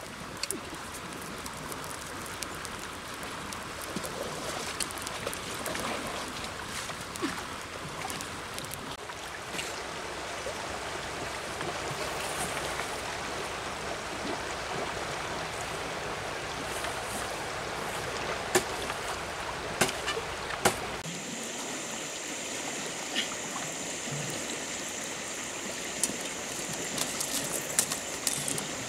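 Shallow river running over stones, a steady rushing and gurgling of water. A few sharp clicks come about two-thirds of the way in. Near the end the low rumble drops away and a steady high-pitched tone joins the water.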